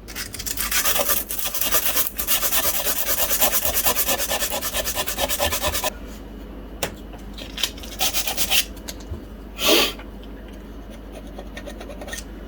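The end of a metal quarter light window-frame upright being sanded in quick back-and-forth strokes for about six seconds, then a few separate slower strokes with one louder scrape near the end.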